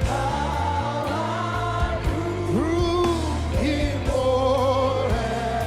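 Live gospel worship music: singing voices with a few sliding vocal runs over held chords and a steady bass.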